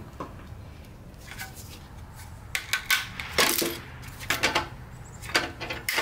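Plastic clicks and rattles of a weatherproof in-use outlet cover being handled as its GFCI insert plate is worked out, in a few short clusters from about two and a half seconds in.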